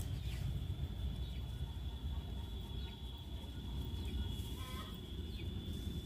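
A chicken clucking in the background, one short call about four and a half seconds in, over a low rumble and a thin steady high-pitched whine.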